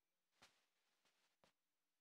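Near silence: room tone with two faint clicks about a second apart and a soft rustle between them.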